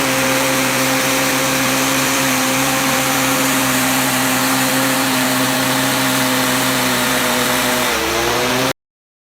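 High-pressure washer running: a steady hiss over a humming motor and pump. About eight seconds in the hum dips in pitch, then the whole sound cuts off abruptly.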